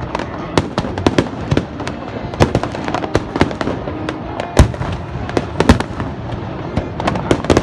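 Aerial firework shells bursting in quick, irregular succession: many sharp bangs and crackles over a continuous rumble of the display, the loudest bangs a little past halfway through.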